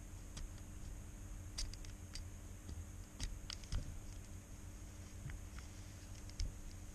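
Scattered faint, sharp clicks of a thin metal tweezer tip picking and catching at the bottom edge of an iPhone's frame, where the stripped bottom screws hold the screen, over a low steady hum. The clicks come irregularly, a few at a time, bunched around the middle and once more near the end.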